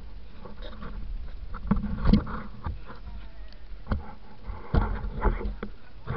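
Scattered knocks and bumps from handling and movement, with brief indistinct voices.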